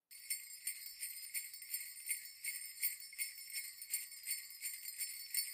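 Sleigh bells shaken in a steady rhythm, about three shakes a second. They start abruptly out of silence.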